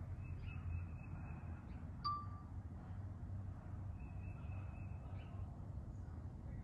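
A single short ding about two seconds in, over a low steady rumble, with a faint thin high whine coming and going.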